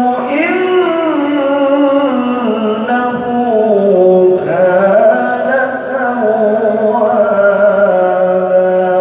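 Male qari reciting the Quran in the melodic tilawah style: one long melismatic phrase with winding pitch turns, settling on a held note near the end.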